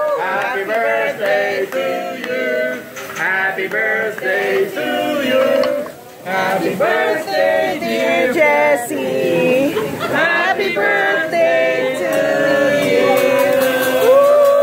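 Several people singing together, with men's voices loudest, ending on a long held note that slowly falls.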